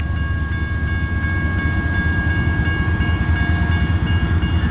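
Grade-crossing warning bell ringing steadily over the low rumble of an approaching freight train's diesel locomotives.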